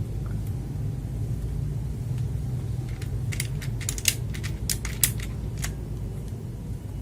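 A quick irregular run of sharp clicks and taps, about a dozen over two and a half seconds starting about three seconds in, from the plastic mechanical keyboard being handled. A steady low hum runs underneath.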